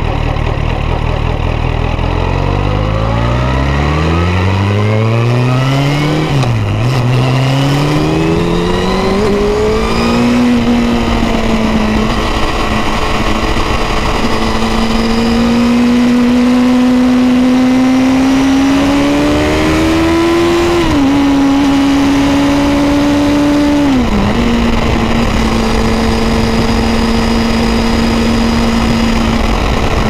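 2006 Yamaha FZ1N's 998 cc inline-four engine accelerating hard from a standstill. The revs climb, drop sharply at an upshift about seven seconds in and climb again, then level off into a steady cruise, with two more upshifts about 21 and 24 seconds in. Wind noise runs underneath.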